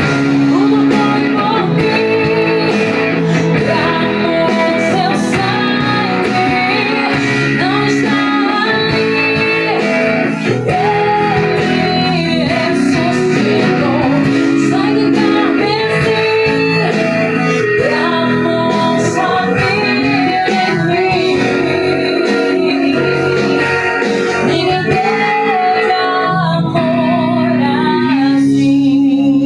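A recorded Brazilian gospel song with a woman singing over a full backing, and a guitar improvising along with it.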